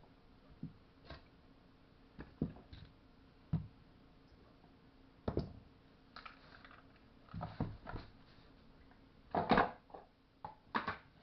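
Irregular clicks and knocks of tools and small parts being handled and set down, about a dozen over the stretch, the loudest near the end.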